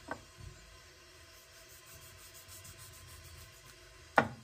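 Knocks on a wooden cutting board as a knife and a sausage are handled on it: a small sharp knock at the start, a soft thump, some faint rubbing, then one loud sharp knock with a short ring near the end.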